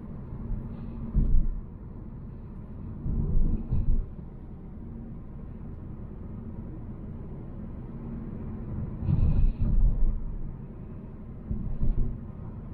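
Volvo C70 driving, heard as a steady low road and engine rumble, with several brief louder low thumps or surges.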